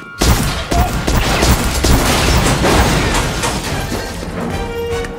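Sustained movie gunfire: many rapid shots running together into a barrage, starting just after the start and thinning out about four seconds in, over background music.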